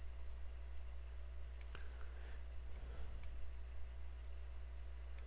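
Several scattered single computer mouse clicks over a steady low hum.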